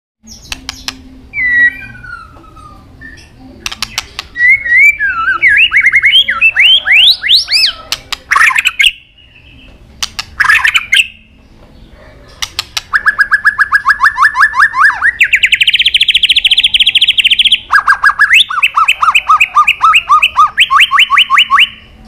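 White-rumped shama singing: sharp clicks and short varied whistled phrases that slide up and down, then, from about halfway, long fast trills of evenly repeated notes, the last of them alternating between a high and a low note.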